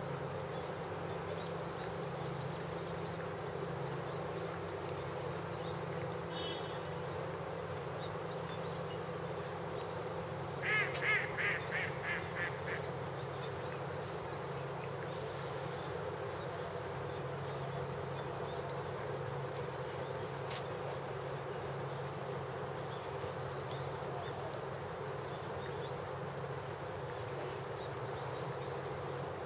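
Steady low hum throughout, with a bird calling a quick run of about seven calls that fade, about a third of the way in.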